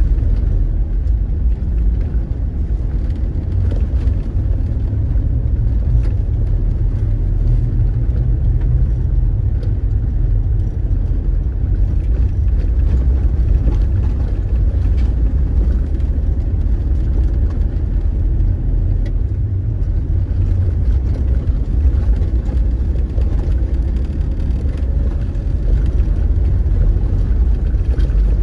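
Car driving along an unpaved dirt track, heard from inside the cabin: a steady low rumble of engine and tyres, with occasional light knocks from the rough surface.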